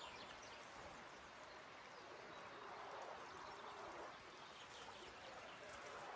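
Faint outdoor ambience: quiet footsteps on a dirt path, with faint bird calls.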